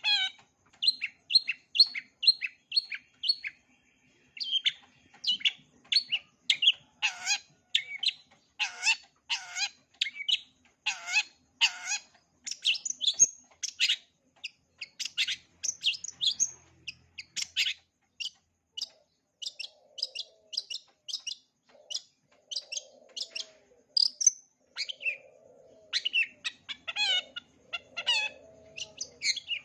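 Long-tailed shrike (cendet) singing a fast, unbroken run of short, sharp chirping notes, its song packed with mimicked calls of other birds, with some lower warbling notes in the second half.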